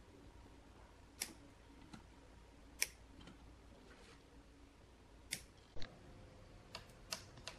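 About seven sharp, isolated clicks and snaps from hand work on an opened Sansui power amplifier. There are single snaps in the first half, consistent with side cutters trimming among the wiring. Near the end come three quick clicks of the front-panel push-button switches.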